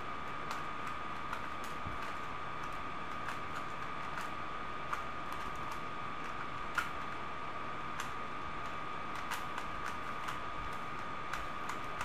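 Rubik's cube being turned fast during a timed solve: irregular plastic clicks and clacks of the layers turning, with a sharper clack about five and seven seconds in, over a steady high-pitched hum.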